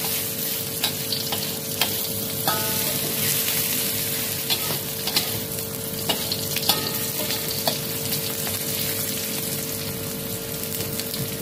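Sliced garlic, shallots, red chilli and ginger sizzling in a little oil in a metal wok, with a metal spatula scraping and clicking against the pan as they are stir-fried until fragrant. A steady hum runs underneath.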